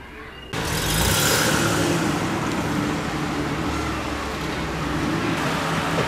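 A car driving up, its engine running under loud road noise, cutting in abruptly about half a second in.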